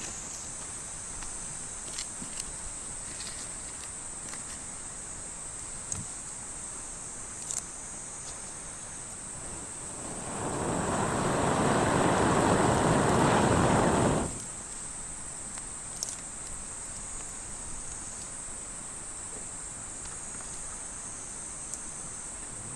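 Steady high chirring of insects, with a few faint clicks. About ten seconds in, a loud rushing noise swells over a couple of seconds, holds, then cuts off abruptly.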